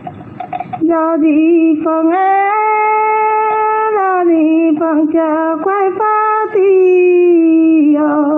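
A woman's voice singing a Dao antiphonal folk song (pả dung) solo, with no instrument under it. The voice comes in about a second in and sings long held notes with wavering ornaments, rising to a higher held note around two seconds and sliding back down after four.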